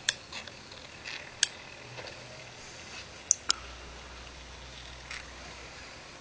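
A small mechanism driven by a microwave-oven turntable motor, clicking and ticking irregularly with about five sharp clicks. A faint low hum joins in for about two seconds past the middle.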